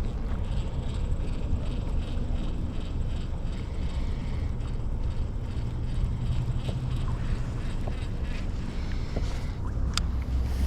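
Wind buffeting the microphone: a steady low rumble, with faint light ticking in the first half and a sharp click near the end.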